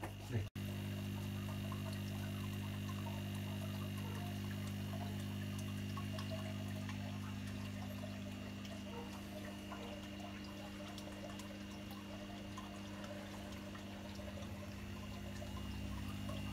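Steady low electric hum from running aquarium pumps and filters, with faint trickling and splashing water.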